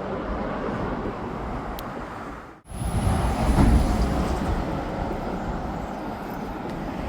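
Steady road traffic noise from vehicles crossing the Humber Bridge, a continuous rushing hum. It breaks off for a moment about two and a half seconds in, then carries on.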